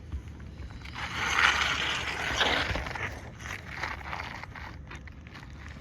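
Scraping and rustling against roof shingles during a shingle repair, lasting about two seconds, followed by scattered light clicks and taps.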